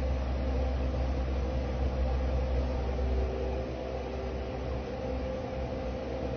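Steady low mechanical hum with a few held tones, like a machine or engine running; the deepest rumble eases a little about four seconds in.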